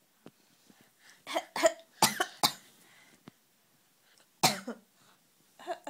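A person coughing: four short, sharp coughs in quick succession, then one more after a two-second pause.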